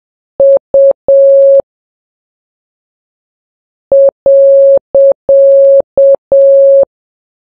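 Morse code sent as clean beeps of one steady pitch: short, short, long (the letter U), then after a pause of about two seconds six elements alternating short and long (dit-dah-dit-dah-dit-dah).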